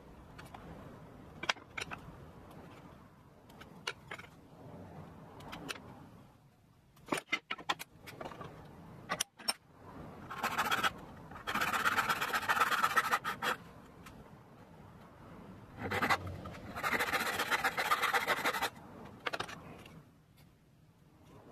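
Boards and tools knocked and set down on a wooden workbench, then a brass-backed hand saw cutting wood in two scratchy bouts, the first about ten seconds in and lasting some three seconds, the second shorter, a few seconds later.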